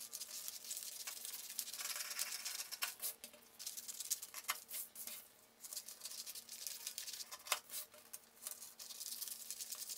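Scissors snipping through stiff brown pattern paper in a run of irregular cuts, with the paper rustling and crinkling as it is handled.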